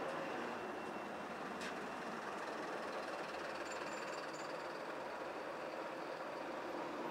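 Steady drone of diesel buses running at a bus stand, mixed with street traffic.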